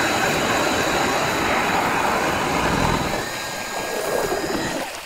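StrikeMaster lithium battery-powered electric ice auger drilling a hole through lake ice: a steady motor whine over the grinding of the blades cutting ice. The sound changes about three seconds in and stops near the end.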